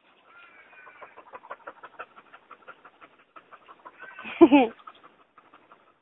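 Dogs play-fighting: rapid panting and faint whining, then one loud yelp about four and a half seconds in.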